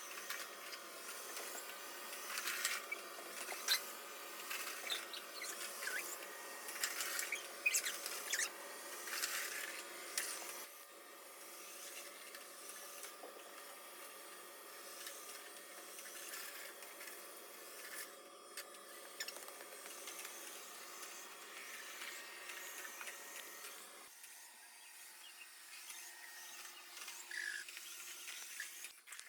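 SwitchBot S10 robot vacuum running, its motor and brushes giving a steady whirring hum. Over the first ten seconds or so there are many clicks and crackles as it picks up scattered Cheerios. About 24 seconds in, the lower part of the hum drops away.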